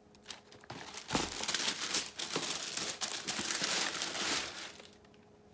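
Packing paper crinkling and rustling for about four seconds as a sneaker is unwrapped and lifted out of its shoebox.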